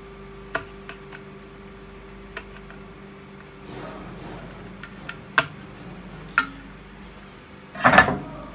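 Small metallic clicks and clinks of a screwdriver working the screws that hold an LED chip to an aluminium floodlight housing. A louder clatter comes near the end.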